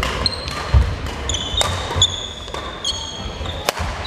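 Badminton rackets striking the shuttlecock in a doubles rally, sharp cracks at uneven intervals, with short high squeaks of court shoes on the wooden floor and a footfall thud about a second in.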